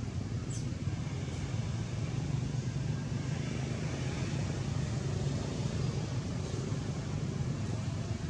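Steady low hum under an even hiss of outdoor background noise, with no distinct events.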